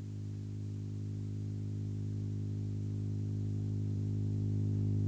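A loudspeaker playing a steady low tone that grows gradually louder as its volume is turned up.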